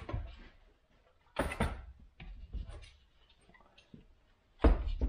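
Chainsaw parts being handled on a workbench: two dull knocks, about a second and a half in and near the end, with light plastic clicks and rattles between, as the plastic handle and fuel-tank assembly is set down.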